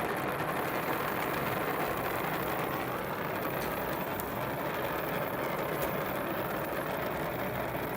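Lit gas brazing torch burning with a steady flame, a constant rushing hiss.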